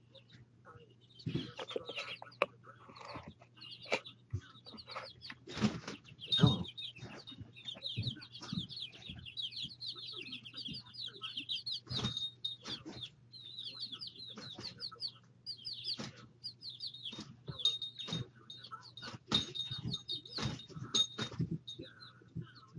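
Baby chicks peeping almost without pause, a run of short, high, falling cheeps, with scattered sharp clicks and knocks and a steady low hum underneath.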